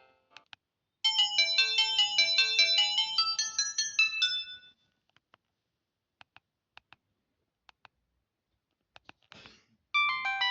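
Samsung E1080i mobile phone ringtone: a short, bright melody of quick notes, several at once, lasting about three and a half seconds. Faint clicks follow, and another ringtone starts near the end.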